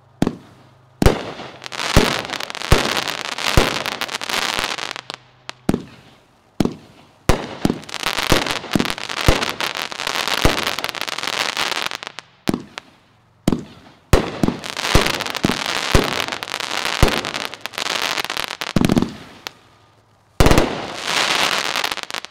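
Consumer aerial firework cake firing: a rapid run of sharp shots and bursts with dense crackling between them, in three volleys separated by two brief lulls.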